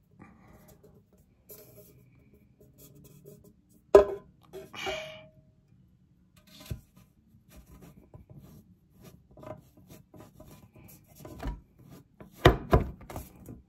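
Fragrance bottles and their boxes being handled and set down: soft rubbing and scraping with a few sharp knocks, a loud one about four seconds in and a quick cluster of knocks near the end.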